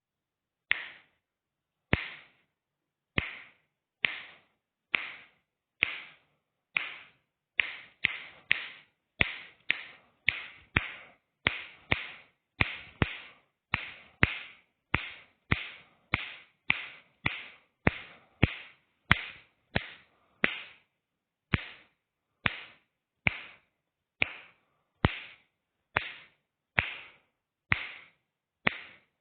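Left-hand finger snaps, one sharp snap at a time, about one a second, some coming in quicker pairs, with quiet between them.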